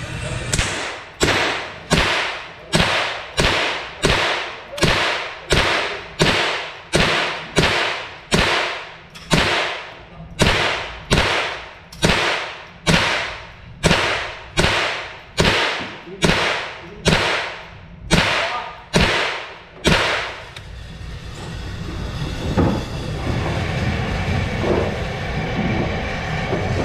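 A long string of semi-automatic .22LR rifle shots from an AR-15 with a .22LR bolt carrier conversion kit, fired at an even pace of roughly three shots every two seconds, about twenty-eight shots in all. Each crack rings on in the echo of an indoor concrete range. The shots stop about two-thirds of the way through, leaving a steady background rumble.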